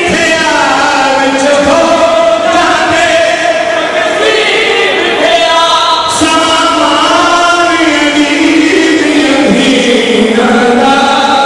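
A man chanting a Saraiki noha, a Muharram mourning lament, into a microphone. His voice holds long notes and slides between them with hardly a break.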